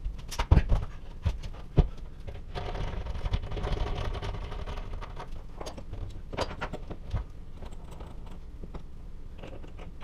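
Knocks and scrapes of an empty wooden wall cabinet being lifted against the wall and propped on a telescoping support pole. The sharpest knocks come in the first two seconds, followed by a stretch of rattling handling noise and a few lighter clicks.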